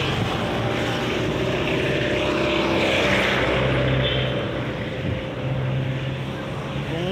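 Motor vehicle engine running in passing street traffic: a steady low drone with slowly shifting pitch over constant traffic noise.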